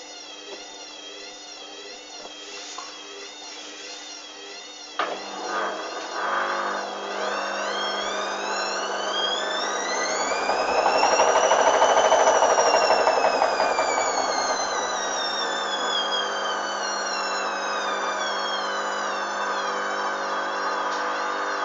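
Hoover Dynamic washing machine with its drum motor running, first with a low wavering whine, then, about a quarter of the way in, picking up speed. The motor whine rises in pitch to a peak near the middle and slides back down as the drum slows, typical of a short spin between rinses.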